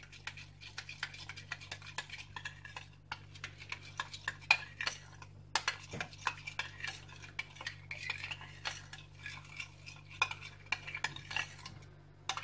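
Metal spoon stirring a thick mayonnaise-based sauce in a ceramic bowl: a quick, continuous run of clinks and scrapes against the bowl, over a faint steady low hum.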